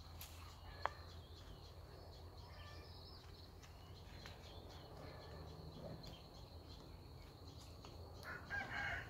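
A rooster crowing faintly in the distance over quiet outdoor background noise.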